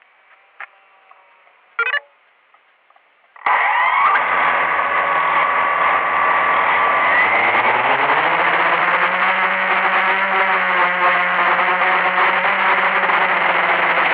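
Blade 350QX quadcopter's four brushless motors and propellers start suddenly about three and a half seconds in and run at idle. They rise in pitch around seven to eight seconds as the throttle comes up for take-off, then hold a loud steady whine in flight, heard from a camera on the quadcopter itself. Before they start there are a few faint clicks and one short chirp.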